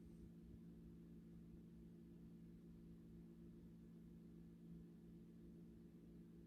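Near silence: room tone with a faint, steady low hum and no snoring.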